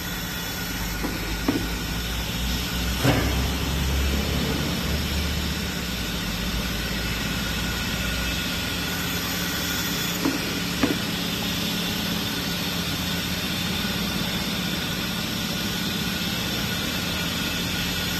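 Automatic bone-saw bandsaw machine running with a steady hiss and hum. A low rumble underneath drops away about eight seconds in, and there are a few sharp clicks or knocks.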